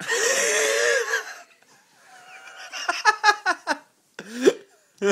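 Men laughing. A loud, breathy laugh lasts about a second and a half, then a run of quick ha-ha bursts comes about three seconds in. It is laughter at the tingle of an electric muscle stimulator on a forearm.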